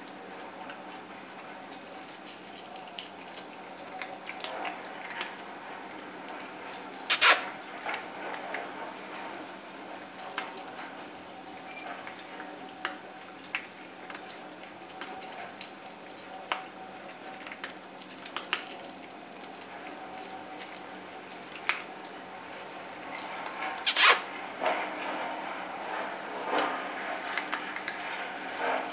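Cats eating dry kibble from a food bowl: soft crunching and frequent small clicks of food and bowl. Two much louder sharp knocks, one about a quarter of the way in and one near the end.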